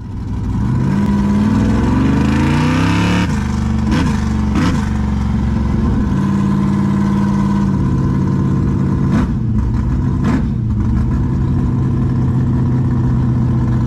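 Chevrolet big-block V8 revving: the engine note rises over the first three seconds, holds at a fast idle, then settles lower about eight seconds in, with a few sharp knocks along the way.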